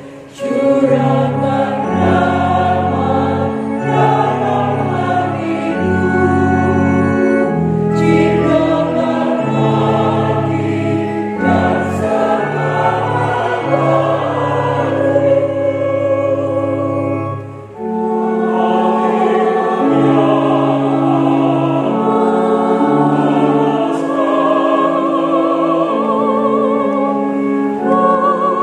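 Mixed choir of women's and men's voices singing in parts, in long held chords. The singing breaks off briefly between phrases about 18 seconds in.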